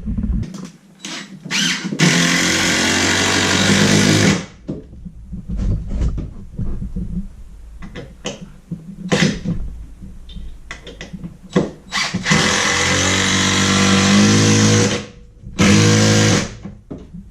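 Power drill driving screws down through the plywood subfloor into 2x4 backing boards below, in three long runs of steady motor whine with short knocks and clicks between them.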